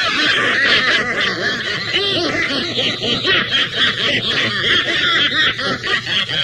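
Several men laughing together, their laughs overlapping continuously.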